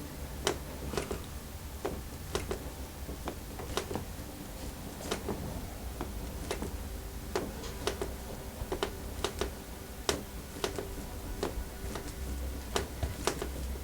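Light clicks and taps at irregular intervals, roughly one or two a second, over a low steady hum.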